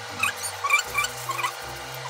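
Plastic cling film crinkling and giving short squeaks a few times as it is wrapped tightly around raw fish fillets, over soft background music.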